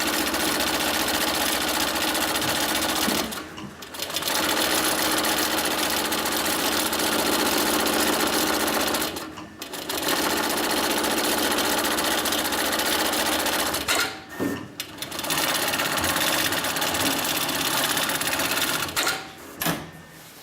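HighTex MLK600-3020 heavy-duty automatic programmable pattern sewing machine stitching webbing at high speed. Its rapid needle rhythm runs in long stretches and stops briefly about four times between stitch runs.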